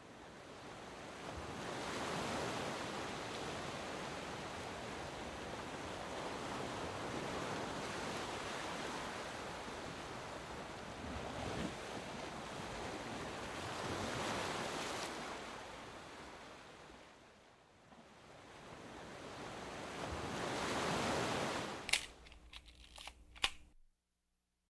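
Rushing noise like surf washing on a shore, swelling and ebbing every few seconds; near the end a few sharp clicks, then it cuts off.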